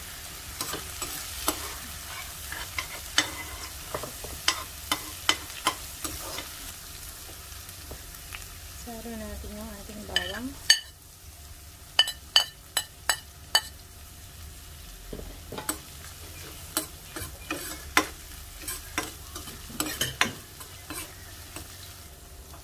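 Chopped onion sizzling in oil in a frying pan while a metal spoon stirs and scrapes it, clinking against the pan again and again. About halfway through, a quick run of clinks as minced garlic is tapped off a plate into the pan.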